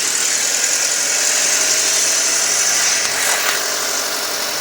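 2007 Audi A4's 2.0T turbocharged four-cylinder engine idling, with a steady high hiss over the running. The owner, who hears ticking, rough running and heavy suction at the oil filler, suspects a pressure leak.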